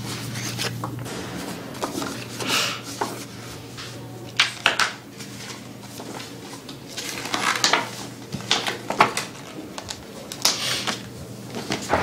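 Photographs and paper being handled: irregular rustles, scrapes and small knocks, some sharp, over a steady low hum.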